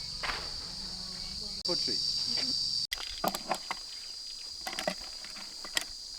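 Outdoor insect chorus: a steady high-pitched buzzing trill that runs without a break, with a few faint, distant voices. The sound cuts abruptly about a second and a half in and again about three seconds in.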